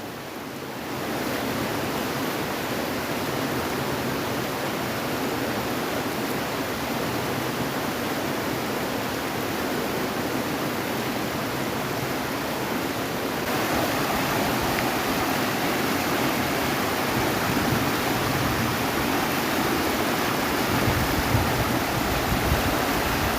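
River water rushing steadily, an even hiss of flowing water that grows a little louder and fuller about halfway through.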